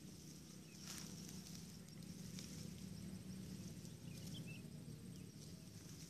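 Dry grass and stalks rustling and crackling as hands work through them, in short bursts about a second in and again near two and a half seconds, over a steady low hum.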